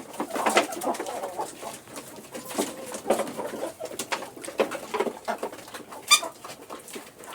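A flock of kienyeji (local free-range) chickens clucking on and off, with one brief, sharper call about six seconds in.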